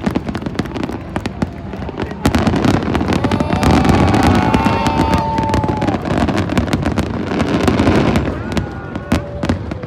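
Fireworks display going off: rapid bangs and crackling that thicken into a dense, loud barrage for several seconds in the middle, then thin out near the end.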